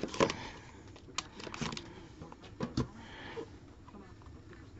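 Trading cards and their packaging being handled on a table: a string of light clicks and taps with a little soft rustling.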